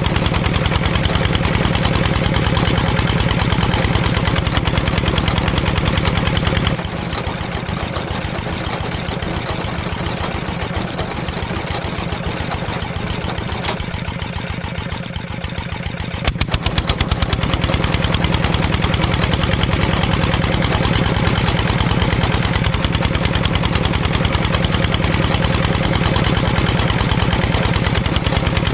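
A small engine running steadily with a rapid, even beat. About seven seconds in it drops in level and the beat grows more distinct, then it picks back up about ten seconds later.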